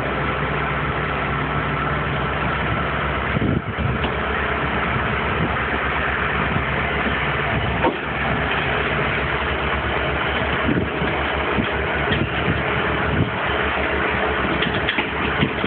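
Hitachi EX120 excavator's diesel engine running steadily with a pulsing throb, and a few brief knocks.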